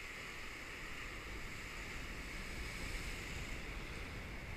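Faint, steady surf: ocean waves washing against a concrete-block breakwater.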